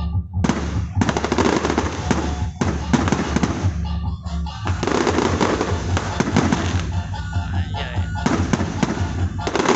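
New Year fireworks display: dense volleys of rapid bangs and crackles, coming in bursts of a few seconds with brief lulls between them.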